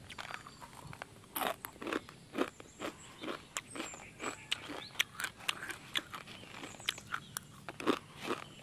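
Close-up crunching of dry, uncooked instant noodles being chewed: a fast, irregular run of sharp crunches, several a second.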